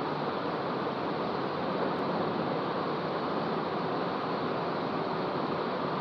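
Steady rushing air noise from a running ceiling fan blowing across the microphone, even and unbroken.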